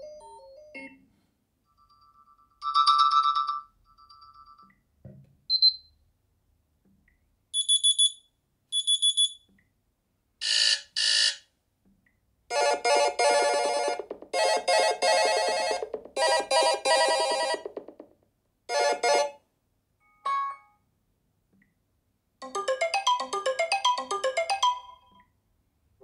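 Sony Xperia 1 VI's built-in alarm tones played one after another through the phone's speaker. Each is a short electronic chime, beep pattern or melody that stops after a second or a few seconds, with brief silences between them. The longest, a fast repeated ringing pattern, runs about five seconds in the middle.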